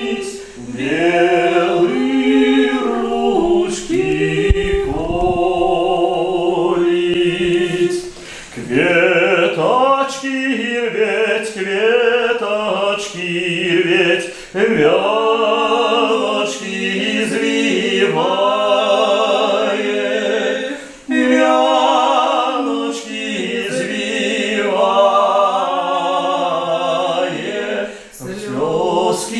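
A woman and a man singing a song together without accompaniment, with long held notes and vibrato. The phrases are broken by short pauses for breath about every six or seven seconds.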